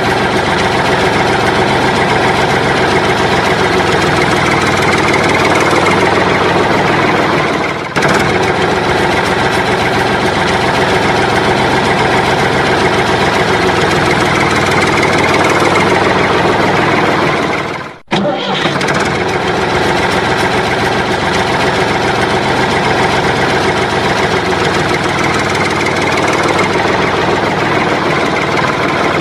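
A vehicle engine running steadily, with a brief dip about eight seconds in and a short cut-out near eighteen seconds in, after which it carries on.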